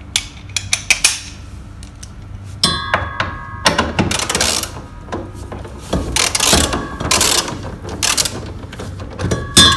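Ratchet wrench with a 13 mm socket on an extension undoing the washing machine motor's mounting bolts: bursts of ratcheting clicks with metal clinking and ringing, and a sharp metallic clank near the end.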